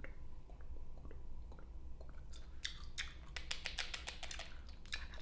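Gum chewing and smacking close to the microphone: a few faint clicks at first, then from about two seconds in a quick, dense run of mouth smacks and clicks.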